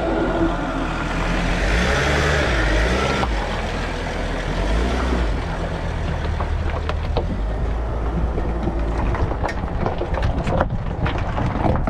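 Sprinter-based camper van's engine running with a steady low rumble as the van rolls slowly over gravel, with scattered sharp crackles of stones under the tyres growing in the second half.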